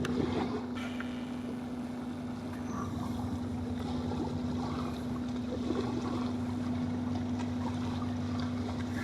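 A tugboat's diesel engines running steadily under load as it pushes barges: a constant low drone with an unchanging hum.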